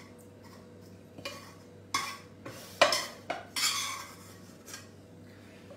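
A spoon scraping and knocking against a frying pan as cream sauce is spooned out over a plate of fettuccine: a handful of short scrapes and clinks, one of them a little longer, a few seconds apart.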